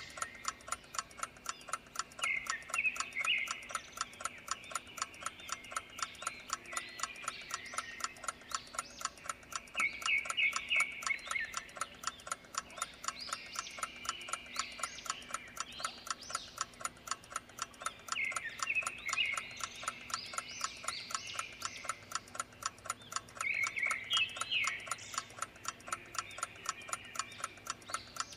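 Steady clock ticking, several ticks a second, as a timer track. Short trilled animal chirps come in bursts every several seconds, about four times.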